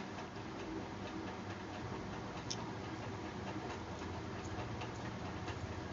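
Low steady background noise with scattered faint clicks, one sharper click about two and a half seconds in.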